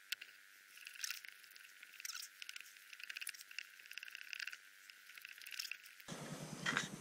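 Oil filter cutter being turned around the steel can of an OEM Honda motorcycle oil filter, the cutting wheel scoring through the metal with faint scraping, crunching and clicking.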